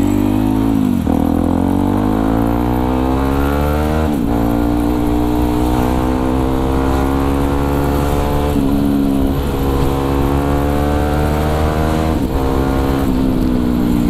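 Yamaha WR155R's 155 cc single-cylinder four-stroke engine running under way from the rider's seat, revs climbing and then dropping sharply at each gear change, about four times.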